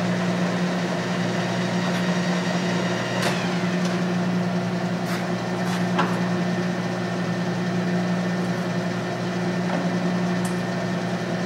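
Clausing Colchester 13 x 40 lathe with its 5 hp three-phase motor running, a steady hum, while the headstock is handled. A few light clicks come at about three, five, six and ten seconds in.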